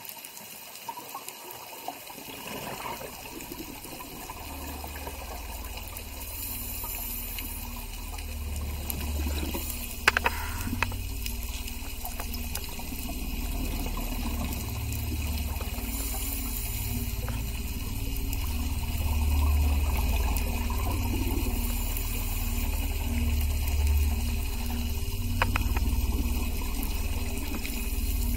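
Underwater sound of scuba diving: a scuba regulator's exhaled bubbles burst every several seconds over a low water rumble that builds after the first few seconds, with a few sharp clicks.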